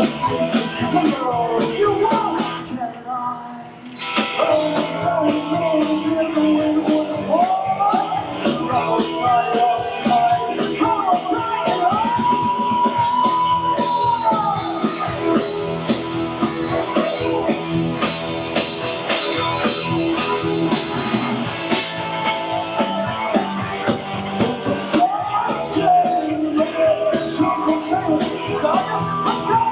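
Live rock band playing with a singer over guitar, bass and drums. About three seconds in the band drops out briefly, then comes back in full with steady drum hits, and midway the singer holds one long note.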